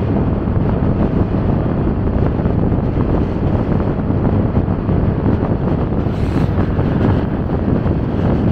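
Motorcycle riding at speed: a steady rumble of wind buffeting the microphone over the bike's engine and road noise, with a short hiss about six seconds in.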